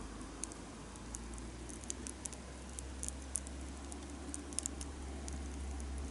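Wood campfire crackling, with small irregular pops and snaps over a low steady hum.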